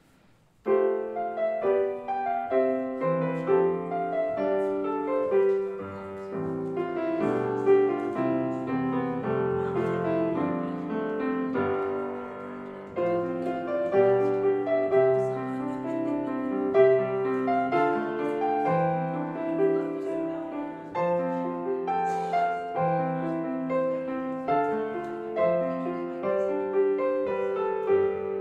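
Piano music that begins just under a second in after near silence and carries on as a steady run of chords and melody notes.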